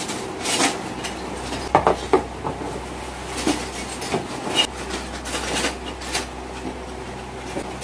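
Scissors cutting into a cardboard box in irregular crunching snips, with the cardboard scraping and rubbing as it is handled.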